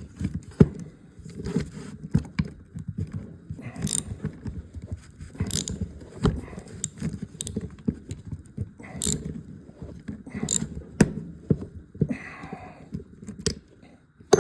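Allen key working steel set screws in a pulley hub: irregular metal clicks, taps and small scrapes as the screws are backed out, with a longer scrape a little before the end.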